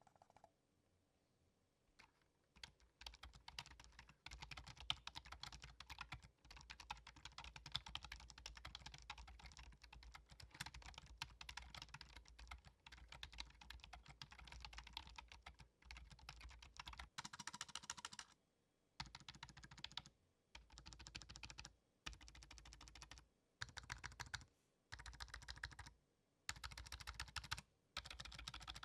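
Typing on a Cherry DW2300 wireless membrane keyboard: fast, continuous key presses at first, then in short spurts with brief pauses. Not a silent keyboard: the keys have a light rattle.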